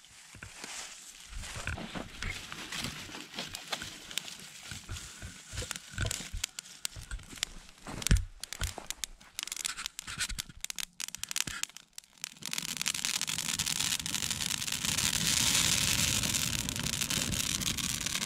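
Hardwood campfire being coaxed along: for about twelve seconds, irregular crackles, snaps and rustles from the kindling, the loudest about eight seconds in. Then a steady rush of flames once the fire has caught and is burning up.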